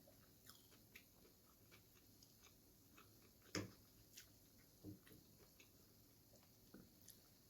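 A person chewing noodles with soft, scattered mouth clicks, plus a louder single knock or bite about three and a half seconds in and a smaller one near five seconds.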